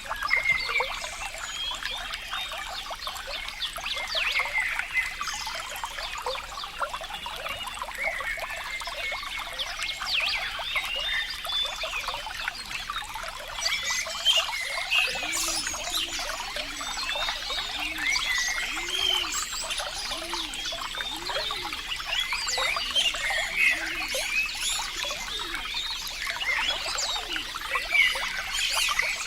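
Water trickling and bubbling steadily, with many small plinks and gurgles. From about halfway a run of low, hollow notes sounds about once a second for several seconds.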